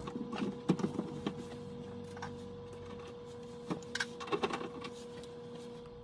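Faint steady hum with a few scattered light clicks and knocks from handling at an indoor HVAC air handler.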